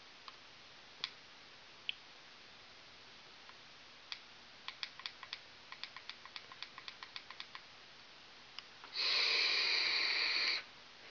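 Rapid clicks of the Smok Alien box mod's buttons, about four a second for several seconds, then a steady hiss lasting under two seconds as a long draw is pulled through the Baby Beast tank.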